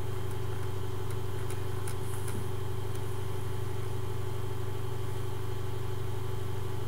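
Steady low hum at an even level, with a few faint clicks in the first half.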